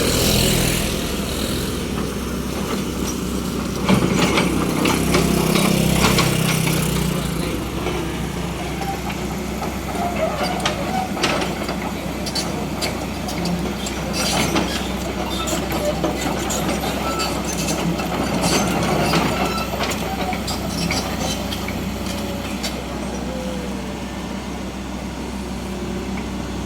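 Diesel engines of heavy earthmoving machinery (excavator and wheel loader) running steadily, with scattered knocks and clatter. The engines grow louder for a few seconds around four seconds in.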